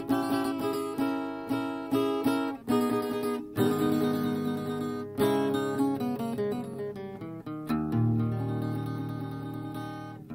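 Instrumental passage of a Sicilian folk song: acoustic guitar plucked and strummed in a steady rhythm, with a deep sustained bass note coming in about eight seconds in.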